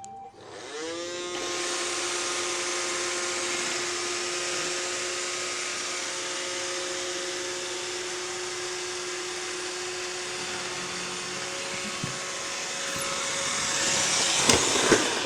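iRobot Roomba 620 robot vacuum starting up and running: its motors spin up about half a second in and settle into a steady whirring hum with a high hiss. A few sharp clicks come near the end.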